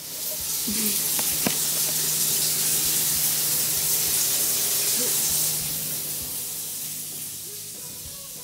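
Shower water running, a steady rushing hiss that comes in at once, holds, then slowly fades away over the last few seconds.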